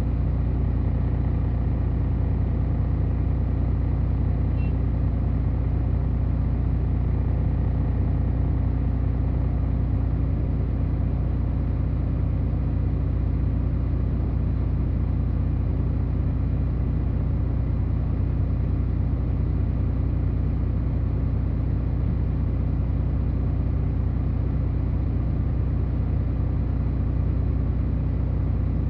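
Heavy diesel engine running steadily at an even speed, a constant low drone with no change in pace.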